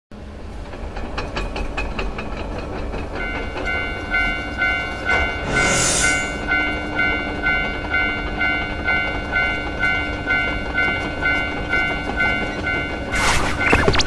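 Japanese level-crossing warning bell ringing "kan-kan", a two-note electronic ding about twice a second, starting about three seconds in, over the clicking of train wheels on rail joints. A burst of hissing comes midway, and a loud noisy burst comes near the end.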